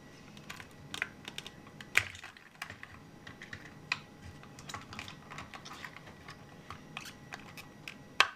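Scattered light clicks and taps from hands handling toy-car packaging, with a sharper click about two seconds in and another just before the end.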